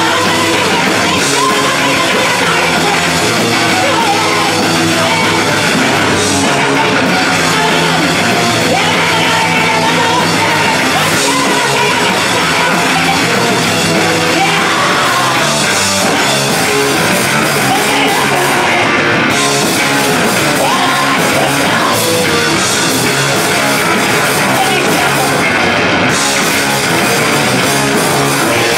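Loud live rock band playing: electric guitar and drum kit, with a woman singing into a microphone over them.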